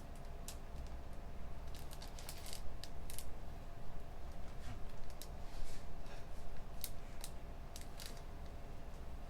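Scattered, irregular computer keyboard clicks in a small, quiet room, over a steady low hum.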